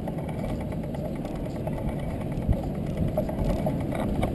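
Wind buffeting the microphone of a moving camera: a steady, rough low rumble, with a few light knocks in the second half.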